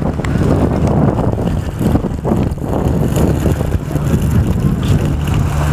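Wind buffeting the microphone: a loud, uneven low rumble, with a steady low hum underneath.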